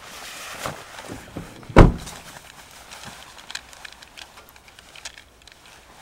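An SUV's rear side door is swung shut, a single loud, heavy thump just under two seconds in. Light rustling comes before it and a few small crunches of footsteps on gravel follow.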